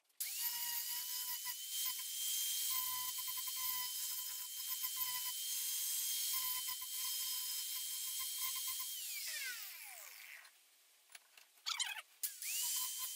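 Electric angle grinder running, grinding the cutting edge of a lawn tractor mower blade: a steady high whine over a grinding hiss. About nine seconds in it is switched off and winds down with a falling whine, then it starts up again near the end.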